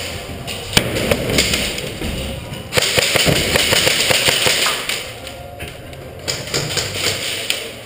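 Background music with a run of sharp clicks and knocks, densest a little under halfway through.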